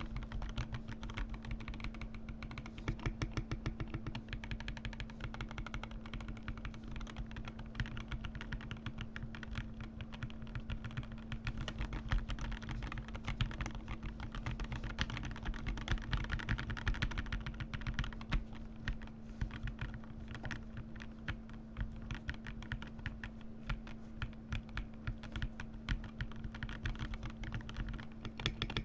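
Continuous fast typing on a computer keyboard, many keystrokes a second, over a steady low hum.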